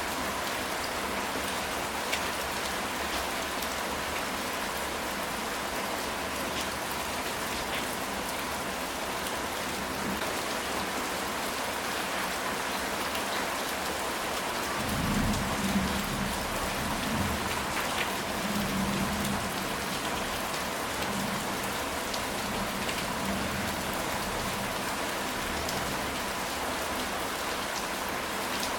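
Steady rain falling on a ceramic tile roof, with scattered drops ticking. About halfway through, a low rumble of thunder rolls for a few seconds.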